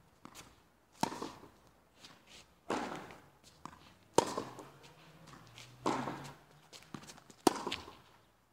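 Tennis racket strings hitting a ball during a rally: three sharp pops, about a second in, just after four seconds and at about seven and a half seconds, the last two loudest. Between the hits, tennis shoes scuff and step on the hard court.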